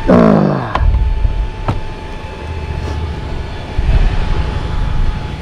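Adventure motorcycle engine whose revs drop sharply in the first second, then runs on low, with a few sharp clicks.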